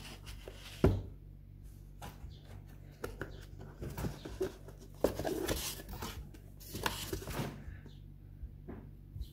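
Hands handling a graphics card's cardboard box and its foam insert: irregular rubbing and scraping with scattered light taps, and a sharper knock about a second in. Steady low hum underneath.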